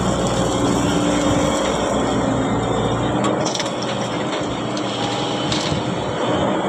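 Heavy machinery engine running steadily under load, with a few scraping knocks from about halfway through, as of material being dug or dumped.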